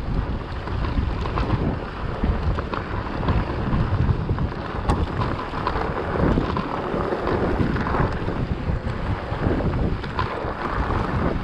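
Wind rushing over a GoPro's microphone as a mountain bike rolls along a dirt singletrack, with tyre noise on the dirt and scattered small clicks and rattles from the bike.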